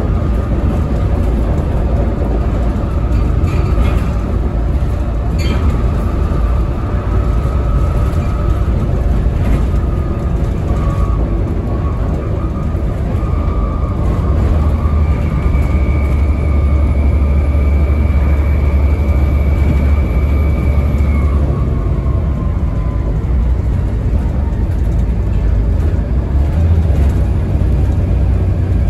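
Volvo B7TL double-decker bus on the move, heard from inside: its 7-litre six-cylinder diesel engine running with a steady low rumble and a faint whine from the drivetrain. From about halfway the rumble grows louder for several seconds with a higher whine over it, then eases off.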